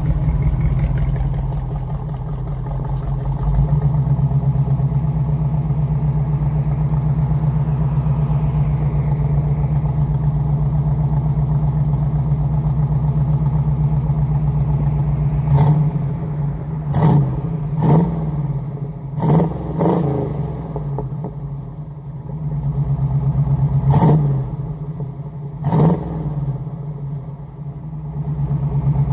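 1981 Pontiac Firebird Trans Am V8 breathing through new Magnaflow mufflers, idling steadily, then revved in about seven short throttle blips over the second half, each rising and falling back to idle.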